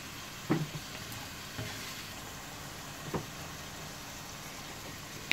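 Diced chicken frying in a non-stick pan, a steady sizzle, with three short knocks and scrapes from a wooden spatula stirring it.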